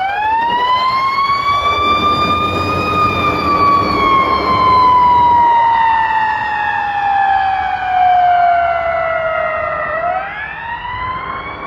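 Fire truck siren wailing: it rises in pitch over about three seconds, falls slowly for about seven, then starts rising again near the end, over a low rumble.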